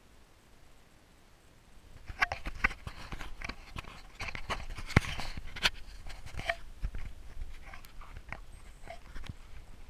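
A climber's gasping, panting breaths mixed with short knocks and scrapes of gear against snow and rock. They start about two seconds in and keep going irregularly.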